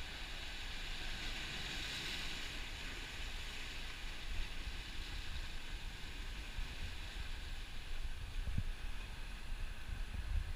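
Surf washing and breaking over lava rocks, a rush of spray swelling about two seconds in, with wind rumbling on the microphone and gusting harder near the end.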